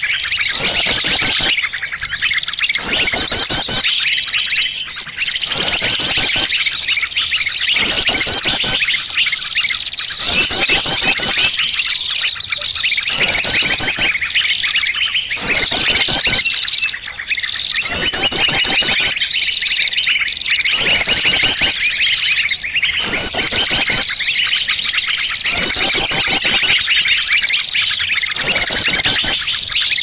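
Bird-lure recording of many small birds calling at once: a dense, noisy mix of chirps and twitters. Over it runs a steady high whistle, with fast trilled phrases repeating every second or two.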